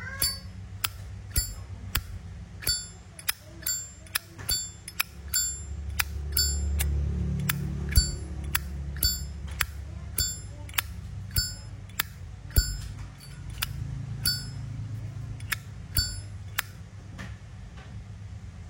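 Zippo lighter lid flipped open and snapped shut over and over, about two clicks a second, many of them with a clear ringing bell-like ping. The lighter has been tuned for this ringing 'bell' tone. The clicking stops about two seconds before the end.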